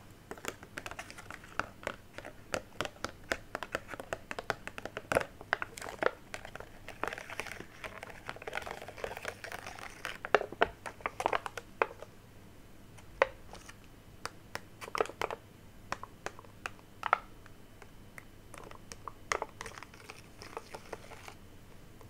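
Sticker sheets being handled close to the microphone: crinkling and crackling with many small sharp clicks, dense for about the first twelve seconds and sparser after.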